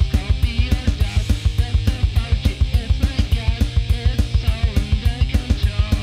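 Rock song played on electric guitar over a fast, steady drum beat with a heavy kick drum.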